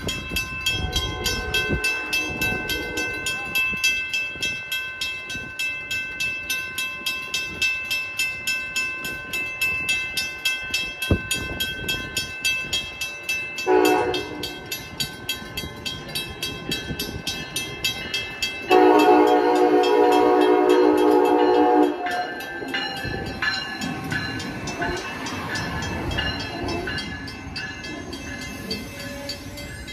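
Grade-crossing bell ringing at about two strokes a second while an Amtrak ACS-64 electric locomotive sounds its horn: a short blast about 14 seconds in, then a long, loud blast of about three seconds. Near the end the train rumbles past.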